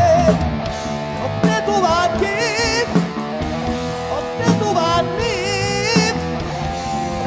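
Live blues band playing an instrumental passage: electric guitar lead notes that bend and waver, over drums.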